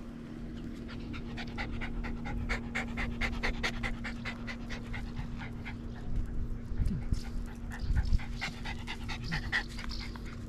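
A dog panting quickly close by, about six short breaths a second, easing off after about six seconds.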